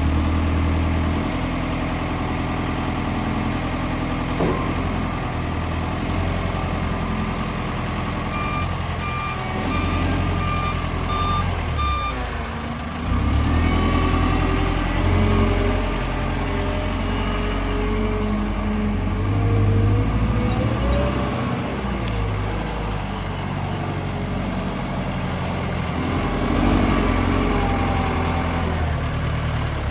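Diesel engine of a Combilift C14000 forklift running, its speed rising and falling, with a high whine that glides up and down in pitch. A series of short warning beeps sounds about a third of the way in.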